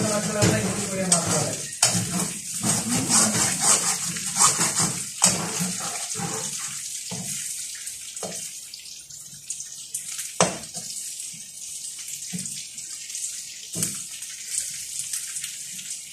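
Metal spatula scraping and clattering against a wok as chicken pieces are stir-fried, over a steady high hiss of frying. The stirring is busy for the first several seconds, then thins to a few scattered clinks, one sharp one about ten seconds in.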